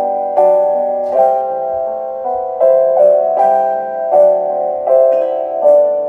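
Background piano music: a slow, gentle melody of single notes and chords, each struck and left to ring and fade.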